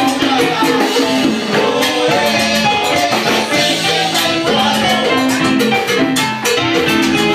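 Live Cuban salsa band playing a steady, dense groove, with percussion and melodic instruments.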